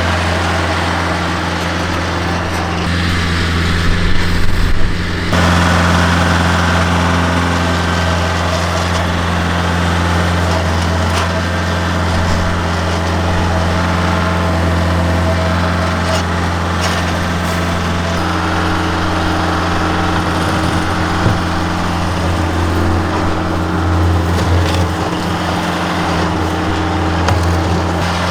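Tractor engine running steadily at working speed, with scattered knocks and scrapes of broken concrete and rock being moved.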